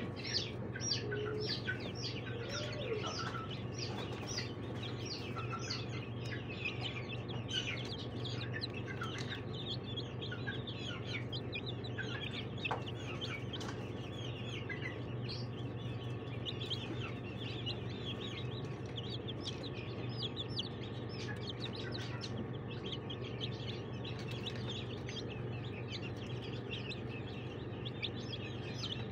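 A brood of newly hatched chicks peeping continuously, with many short, high, falling peeps overlapping one another over a steady low hum.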